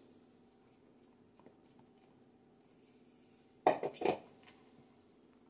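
Kitchenware clattering twice, about half a second apart, some two thirds of the way in, as flour is added to a plastic mixing bowl holding a wooden spoon. Otherwise quiet, with a faint steady hum.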